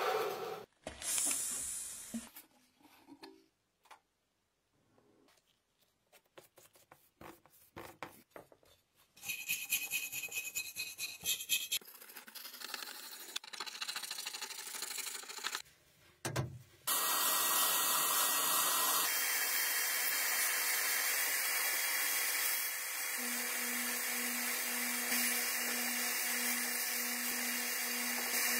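Scattered small clicks and knocks, then a flat scraper rasping in quick repeated strokes across stripper-softened paint on an old pencil sharpener's metal base plate. After a thud, a sandblasting nozzle in a blast cabinet gives a steady loud hiss, and a low hum joins it later.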